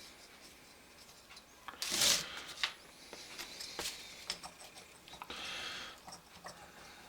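Hands and small tools working on a motorcycle carburetor: scattered light clicks and taps of metal and plastic parts, with a short scraping rub about two seconds in and another brief rub a few seconds later.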